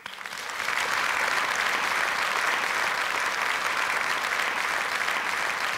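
Audience applauding, a dense steady clatter of many hands clapping that builds up over the first second and then holds.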